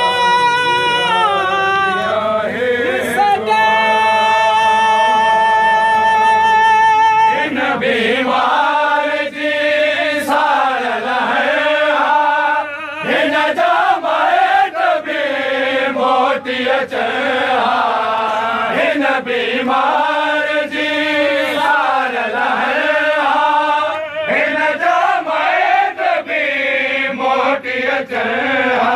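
Voices chanting a Sindhi noha, a Shia lament. A long held note comes first, and after about seven seconds it gives way to wavering sung lines.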